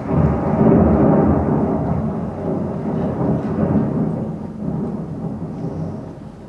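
A loud, low rumble from the production's sound score, with held tones in it, dying away over the last two seconds or so.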